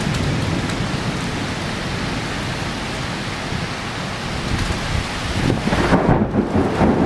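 Torrential cloudburst rain pouring down in a steady, dense hiss. From about five and a half seconds in it swells louder, with a gusty low rumble underneath.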